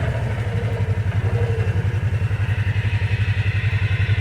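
Kawasaki Teryx 800 side-by-side's V-twin engine running at low, steady revs as the machine rolls along a dirt trail, its exhaust pulsing evenly and growing a little louder near the end.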